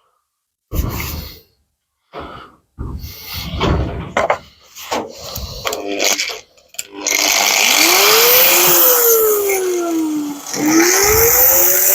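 Irregular knocks and scrapes of hand work on the car's sheet metal. About seven seconds in, a handheld power tool starts and runs loudly on the metal, its pitch sagging and recovering twice as it comes under load.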